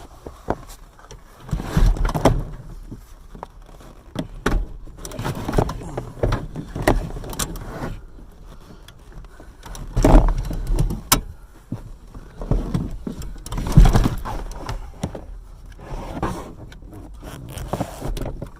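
Irregular clunks, knocks and scrapes of hand work on a car seat's metal frame and rails while parts are taken off it, with heavier thumps about two seconds in, near the middle and about three-quarters of the way through.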